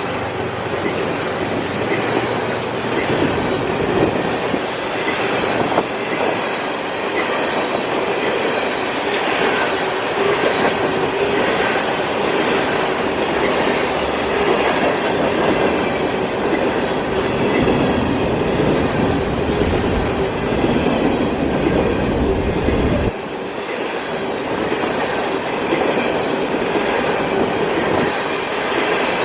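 CSX coal train's cars rolling past at speed, wheels clacking over the rail joints with a faint high wheel squeal. The low rumble drops away abruptly about 23 seconds in.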